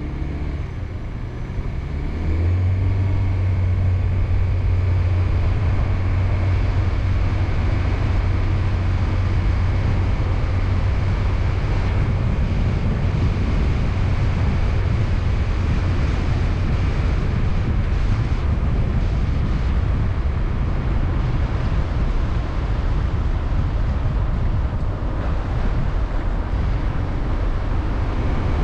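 Car driving up a mountain road: steady engine and tyre noise with a low drone that sets in and grows louder about two seconds in.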